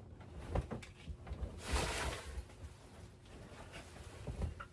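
Soft handling noises: a few light knocks and low thuds, with a brief rustle about two seconds in.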